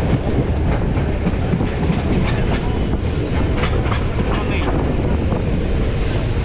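Electric multiple-unit suburban train running at speed, heard from its open doorway: a steady, loud rumble of wheels on rails, with a run of clickety-clack over rail joints between about two and five seconds in.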